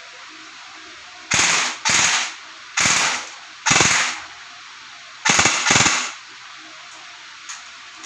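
Cybergun Colt M4 electric airsoft rifle firing on full auto: five short bursts of rapid BB shots, each about half a second long, with the motor and gearbox cycling fast.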